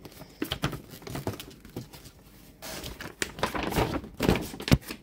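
A folded paper poster rustling and crackling as it is handled and opened out, with a couple of dull knocks near the end.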